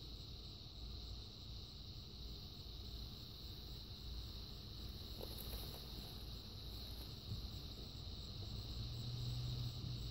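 Quiet outdoor ambience: a steady high-pitched insect drone, like crickets, over a low rumble that grows louder near the end.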